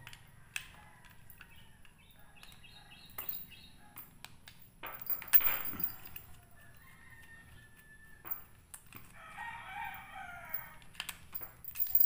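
A rooster crows once in the background about nine seconds in, a pitched call that droops at the end. Under it, small clicks and scrapes of a screwdriver turning a screw in the padlock alarm's plastic housing, with a short louder noise about five seconds in.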